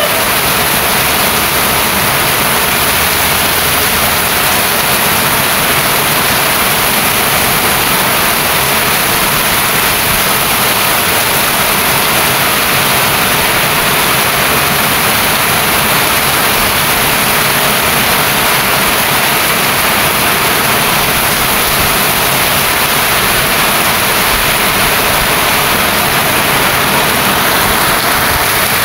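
Steady heavy rain, an even, unbroken hiss of falling rain.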